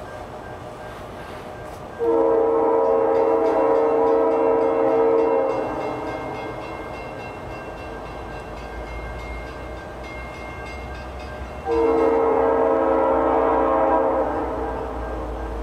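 Approaching diesel locomotive sounding its air horn in two long blasts about ten seconds apart. Between the blasts the engine and wheels give a low rumble that grows as the train nears.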